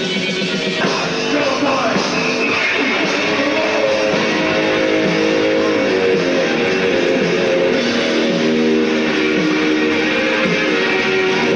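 Rock music led by guitar, with held chords and notes.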